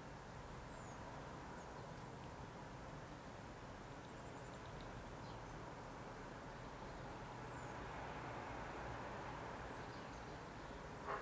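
Faint, distant drone of a small propeller plane high overhead, swelling slightly in the second half, with faint high chirps in the background. A brief sharp sound stands out at the very end.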